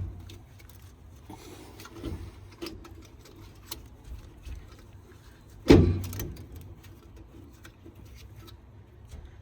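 Metal clunks and knocks as a differential carrier assembly, with its bearing caps and shim packs, is fitted into a GM 10-bolt rear axle housing. There are a few light knocks and one heavy clunk just before six seconds in.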